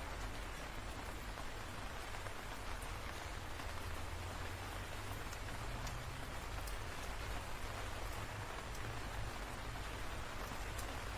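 Steady rain falling, an even dense hiss with a continuous low rumble underneath.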